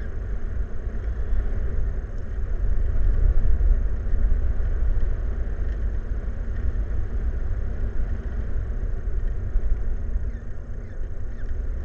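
Steady low rumbling noise, with a few faint high chirps.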